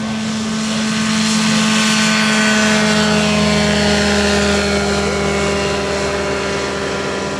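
Sorrell Hiperlight ultralight biplane's engine and propeller droning steadily as it lifts off and climbs past. The drone grows louder for the first few seconds, then drops slightly in pitch and level as the plane moves away.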